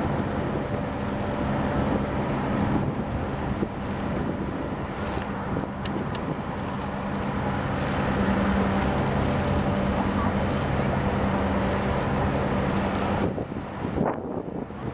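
Wind buffeting the microphone over a steady low engine hum from a large container ship's diesel propulsion. The hum and much of the wind noise drop away near the end.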